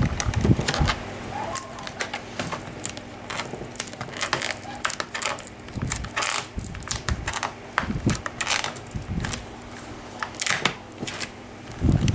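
Adhesive tape being peeled off a Chromebook's plastic casing, with small clicks from handling the laptop: a string of clicks and short crackly rasps every second or two.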